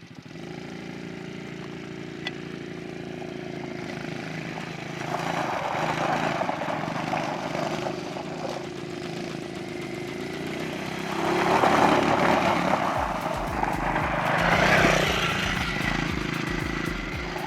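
Small 110cc single-cylinder four-stroke engines of youth ATVs running at high, steady revs, held on the rev limiter in low-speed mode. The sound swells louder twice, as the quads come close.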